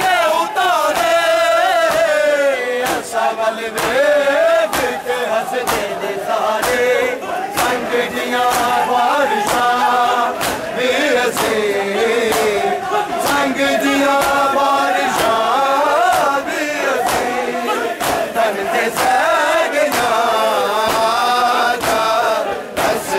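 A group of men chanting a nauha, a Shia Muharram mourning lament, loudly in unison. Sharp slaps of hands on bare chests (matam) land repeatedly through the chant.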